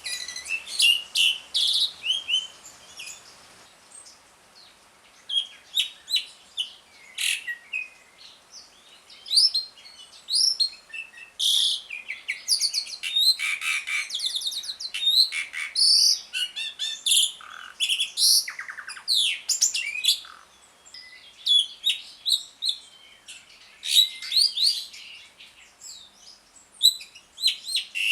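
Asian pied starling (jalak suren) singing in its chattering 'ngriwik' style: a varied, irregular run of loud, sharp chirps, whistled notes and harsh rasping phrases, with a brief lull about four seconds in.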